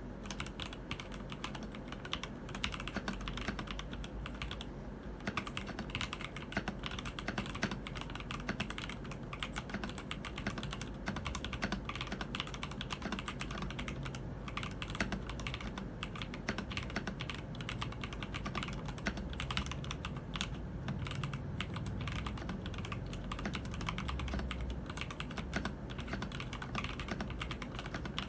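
Keydous NJ80 mechanical keyboard with TTC Speed Silver switches being typed on quickly, a dense, continuous stream of key clacks.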